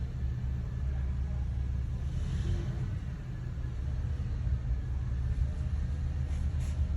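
Steady low machinery hum with no clear change or strokes.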